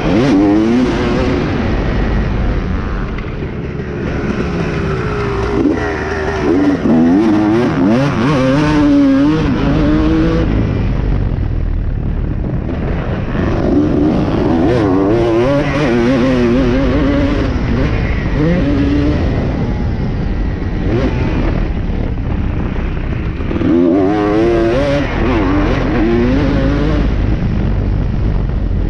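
250cc motocross bike engine being raced, the revs climbing and dropping again and again as the rider throttles on and off through corners and jumps.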